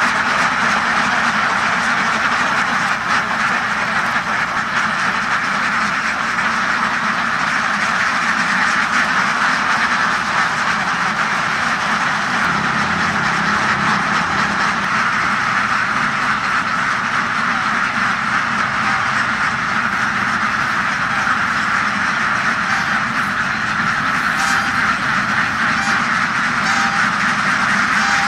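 A packed flock of thousands of domestic laying ducks quacking all at once, a steady, dense chorus with no pauses.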